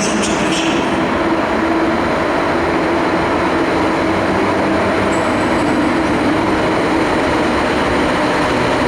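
Train running along the station track with a steady, loud rumble and hum, with a brief high squeal from the wheels about half a second in.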